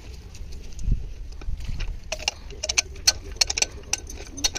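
Sharp metallic clicking, a few clicks a second from about two seconds in, from a socket wrench working the flywheel bolts of an Isuzu 4JB1 diesel engine.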